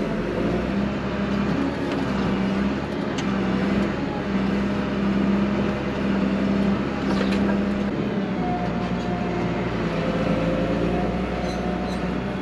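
JCB Fastrac 3220 tractor running steadily under load while pulling a harrow across ploughed ground, heard from inside the cab: an even engine drone with a strong low hum.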